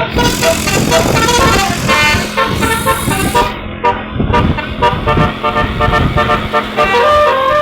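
Bus's multi-tone "telolet" basuri horn playing a tune of quick, short stepping notes over a low rumble.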